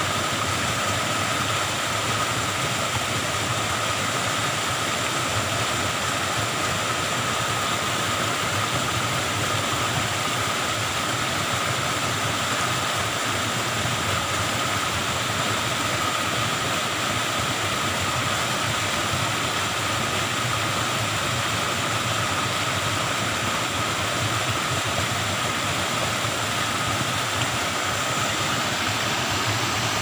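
A small waterfall in flood pouring into a swollen, muddy stream: a loud, steady rush of white water that does not change.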